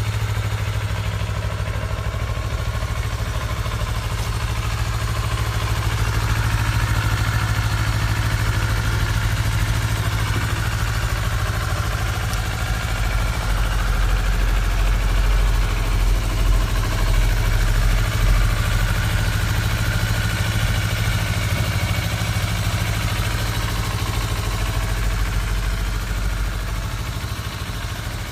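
Kawasaki Ninja 400's parallel-twin engine idling steadily.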